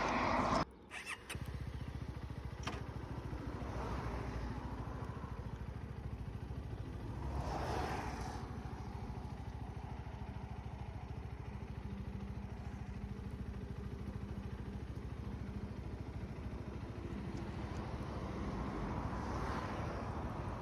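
CFMoto 250SR's single-cylinder engine running steadily, with a short break about a second in and a couple of brief swells of noise later on.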